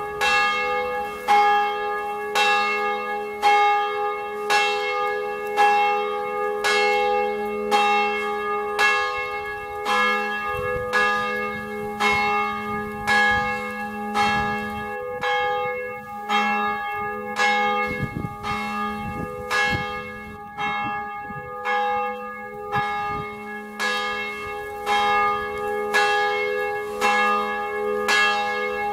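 Church bell ringing, struck at a steady pace of roughly one stroke a second, each stroke's ringing tones carrying on under the next.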